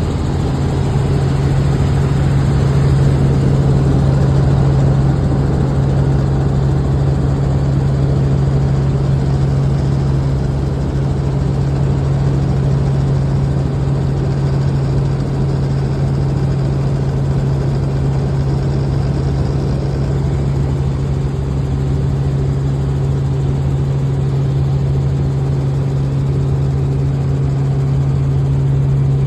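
Helicopter engine and rotors droning steadily, heard from inside the cabin, with a strong low hum that holds one pitch.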